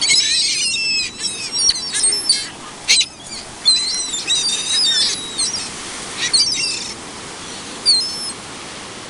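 A flock of ring-billed gulls calling: many short, overlapping high cries in bursts. They are thickest at the start and again from about three and a half to five and a half seconds in, and thin out toward the end.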